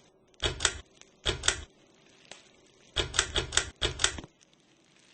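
Four short bursts of rapid mechanical clicking, two near the start and two longer ones about three seconds in, over a faint steady hum.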